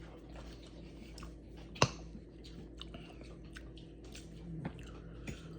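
Someone chewing food, with many small wet mouth clicks and one sharp click about two seconds in.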